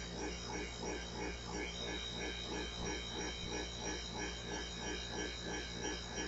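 Salvaged rotary compressor running steadily, a low electric hum with a fast, even pulse, as it pumps its tank up from about 140 toward 200 psi.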